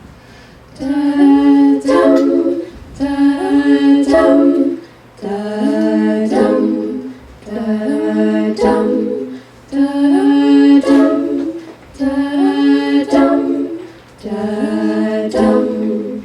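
A mixed a cappella group sings a repeated intro figure in close harmony without lyrics: six phrases about two seconds long, each a held low chord with moving upper voices, separated by short breaks.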